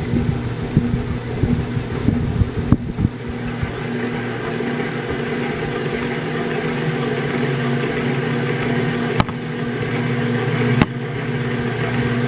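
Harbor Breeze Marco Island 52" ceiling fan running with a steady low motor hum, very noisy for a ceiling fan. There are irregular low knocks in the first few seconds and two sharp clicks later on.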